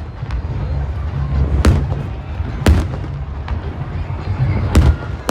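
Fireworks display: shells bursting with sharp bangs, three loud ones a second or two apart, over a continuous low rumble.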